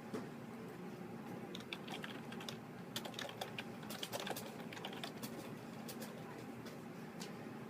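Computer keyboard typing: a run of quick, irregular key clicks from about a second and a half in until about five seconds in, then a few scattered clicks, over a steady low room hum.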